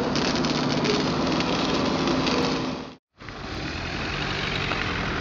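Fire engine's motor running steadily under the load of its water pump, with spray hissing from a charged hose. It cuts off abruptly about three seconds in, and a quieter steady vehicle engine drone follows.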